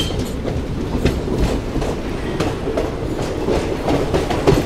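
Passenger train coach running along the track, heard from its open doorway: a steady rumble with wheels clacking over rail joints every so often.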